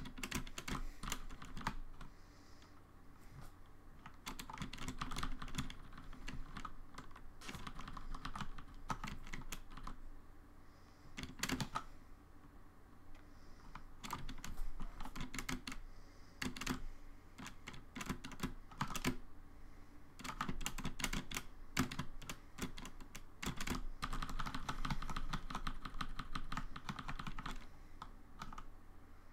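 Typing on a computer keyboard: runs of rapid key clicks in bursts, broken by short pauses.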